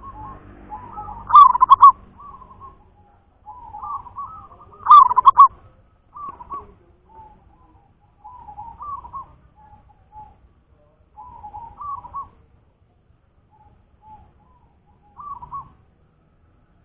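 Zebra dove (perkutut) cooing in short phrases of quick, pitched notes, the loudest about a second and a half in and about five seconds in, then fainter phrases every two to three seconds.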